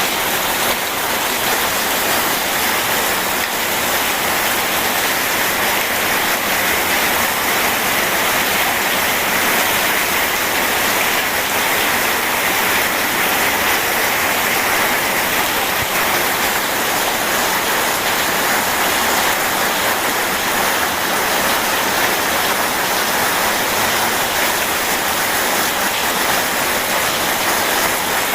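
Steady rain mixed with rushing river water, an even, unbroken hiss.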